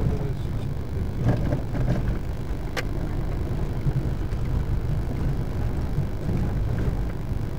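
Steady low rumble of a vehicle on the move, with one sharp click a little under three seconds in.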